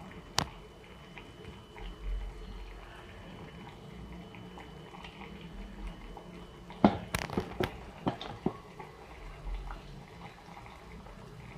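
Pot of shrimp sinigang simmering, a soft steady liquid sound. A sharp click comes about half a second in, and a short run of sharp clicks and knocks about seven to eight and a half seconds in.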